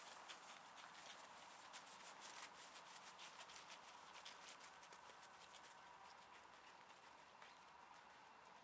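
Faint, quick, irregular patter of Groenendael dogs' paws running across frosty grass, thinning out after about five seconds.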